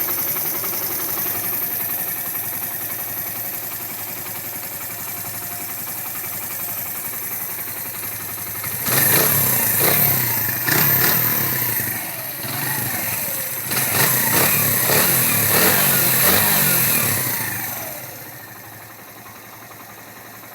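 Suzuki GN125H's single-cylinder four-stroke engine idling, then revved in two bursts of throttle, about nine seconds in and again around fourteen seconds, each rising and falling in pitch before it settles back to idle near the end. The engine's cam timing chain has just been adjusted.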